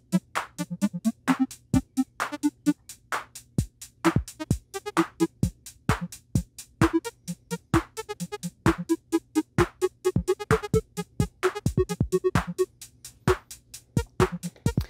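Teenage Engineering TX-6's built-in synth engines playing a sequenced electronic pattern: short plucked notes and sharp percussive hits at a fast steady rhythm, with the note pitches shifting as the colour encoders are turned.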